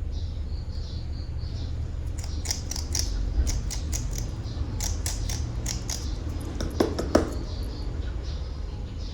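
Hard plastic animal toys being handled: a run of quick, sharp clicks and taps that starts about two seconds in, with two louder knocks near the end, over a steady low rumble.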